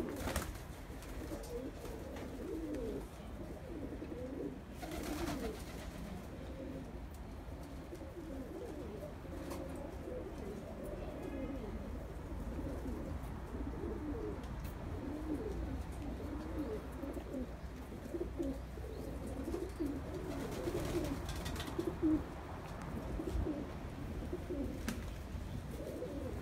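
Several domestic pigeons cooing continuously in overlapping low, burbling coos, with a couple of brief rustling noises about five seconds in and again near twenty-one seconds.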